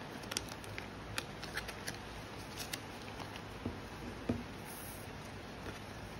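Photocards being handled and slid into clear plastic binder sleeves: light plastic clicks and crinkles in the first few seconds, then a couple of dull taps of a card pressed onto the table around four seconds in. A steady rain-noise hiss runs underneath.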